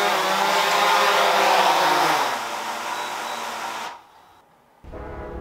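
DJI Mavic Air 2 quadcopter on Master Airscrew Stealth propellers, hovering with a steady whine and hiss. About two seconds in the pitch falls and the sound drops as the drone comes down to land. The motors stop about four seconds in, and near the end background music begins.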